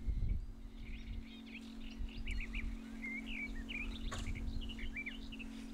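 Small birds chirping, many short quick calls overlapping, over a steady low hum.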